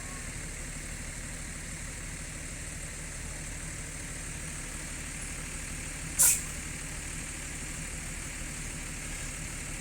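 Bus diesel engine idling steadily, with one short, loud hiss of released air from the air brakes a little after halfway.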